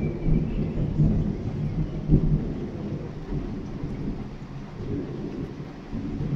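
Thunder rolling in long low rumbles that swell and fade several times, loudest about two seconds in, over steady rain.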